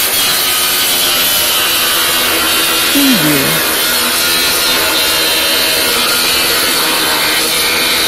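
Electric power saw cutting through metal: a steady, harsh grinding with a high metallic edge that runs without a break.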